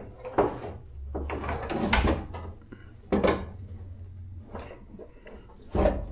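Knocks, bumps and scrapes of an aftermarket plastic bumper cover being handled and offered up against the back of the car, a few separate knocks with the loudest near the end.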